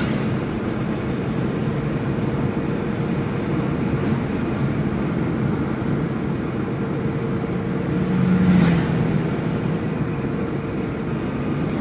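Steady engine and road noise of a car, heard from inside the cabin while driving. About eight seconds in an oncoming van passes, briefly louder.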